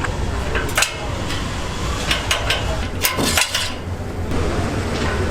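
Kitchen or table clatter: a scattered run of sharp clinks and knocks of utensils and dishes over a steady low hum, with a short rush of noise about three seconds in.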